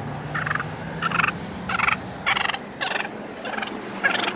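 Wild turkey tom gobbling at close range, about seven short, loud calls in quick succession.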